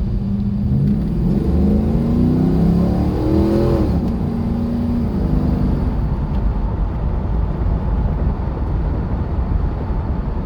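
Camaro Z28's LS1 V8, with aftermarket heads, cam and intake, accelerating hard: its pitch climbs for about three seconds, drops sharply about four seconds in, then the engine runs on more steadily. The owner believes the engine is starved for fuel pressure by its Walbro 255 fuel pump.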